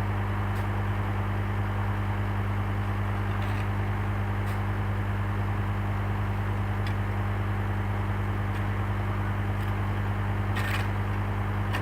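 A vehicle engine running steadily at an even pitch, with a few faint clicks or scrapes, the most noticeable one near the end.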